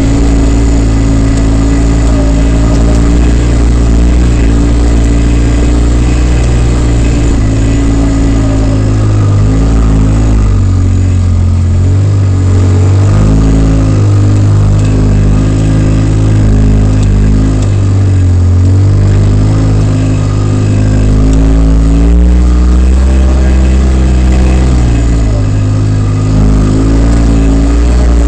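Polaris RZR side-by-side's engine running loud, its pitch rising and falling repeatedly as the throttle is worked over rough trail.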